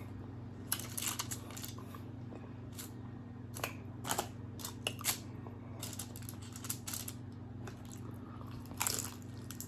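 Close-miked eating of crispy birria tacos: scattered crunching bites and chewing, over a steady low hum.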